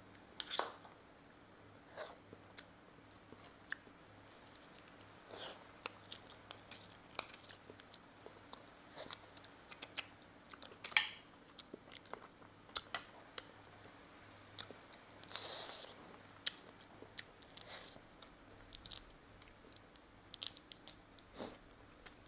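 Close-up eating of steamed roe-filled mud crab: soft chewing and mouth sounds broken by scattered short crunches and clicks as crab shell and legs are pulled apart and bitten, one sharper snap about halfway through.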